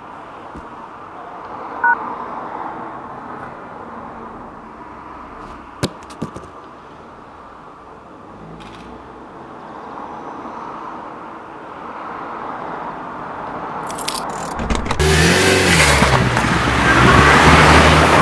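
A quiet, steady car hum with a few sharp clicks, then a small hatchback's engine and tyres growing loud as it drives up the street, loudest near the end.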